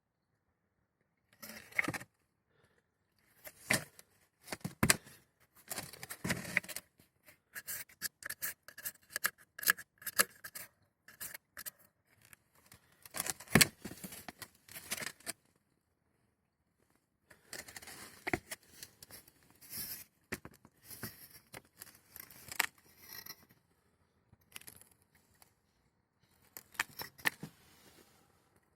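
Handling noise of a diesel heater unit being turned over and moved about: irregular clicks, scrapes and knocks of hard plastic and metal, in short bursts with pauses. The heater itself is not running.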